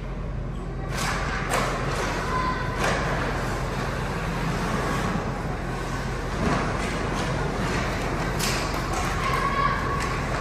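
Ice hockey play on the rink: sticks, puck and skates give several sharp knocks and clacks, a few early and a cluster near the end, over a steady low hum.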